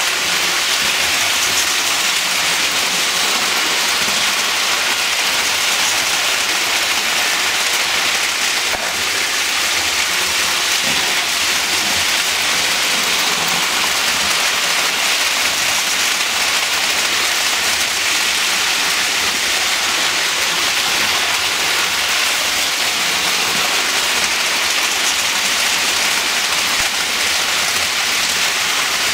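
Lionel toy electric trains running on tinplate three-rail track: a steady rushing noise of metal wheels rolling on the rails.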